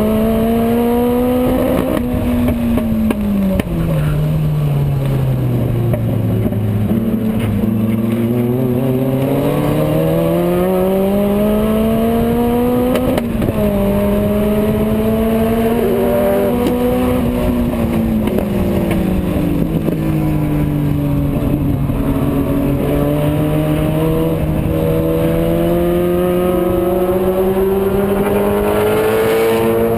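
GT2 race car engine heard on board at racing speed, its revs rising and falling through the corners, dropping low and slow for several seconds, then stepping down sharply at a gear change about halfway through before climbing steadily again.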